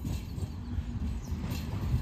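Bombardier CR4000 tram approaching along the track: a low rumble with a few wheel-on-rail clicks near the end, growing slightly louder as it nears.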